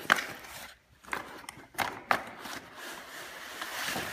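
Cardboard packaging rustling and scraping, with several sharp knocks of a hard plastic toy forage harvester against the box as it is slid out, and a longer scrape of cardboard toward the end.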